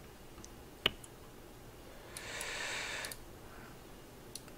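A computer mouse clicking once, sharply, about a second in, with a few faint ticks around it. A soft hiss lasting about a second follows midway.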